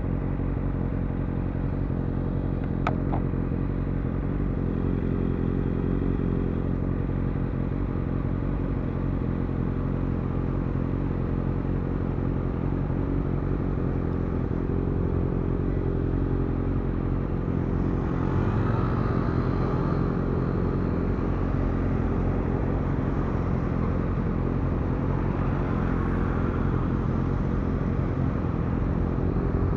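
Honda CB650F's inline-four engine idling steadily, heard close up from the bike. Other traffic passes by in the second half, and there is a brief high chirp about three seconds in.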